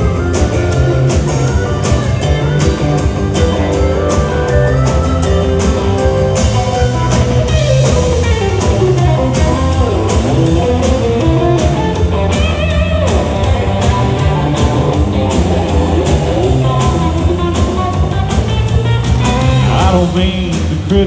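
Live country band playing an instrumental break: guitar lead with bent notes over bass and a steady drum-kit beat.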